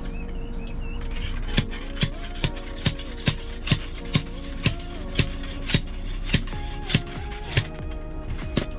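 A tool working wood in quick, regular sharp strokes, about two a second, stopping about three-quarters of the way through, with one more stroke near the end, over background music.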